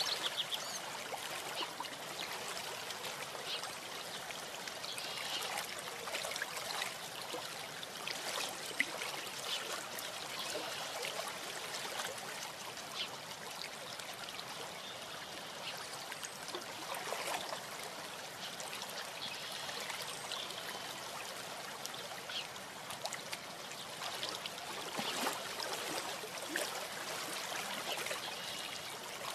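A steady rushing hiss, with short faint high sounds now and then.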